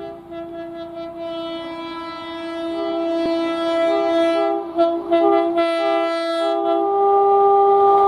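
Indian Railways WAP-7 electric locomotive's multi-tone horn, sounded long as the train approaches and growing louder. In the middle of the blast one tone is broken into several short toots, then the horn is held steady again.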